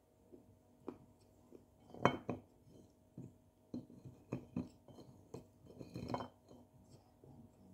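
Dry edible clay being crumbled between the fingers, with bits clicking and tapping onto a dish: a scatter of sharp crackles, loudest about two seconds in and again about six seconds in.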